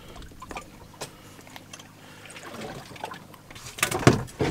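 Water trickling with small clicks and knocks of a catch being handled on a boat deck, then a cluster of louder knocks near the end.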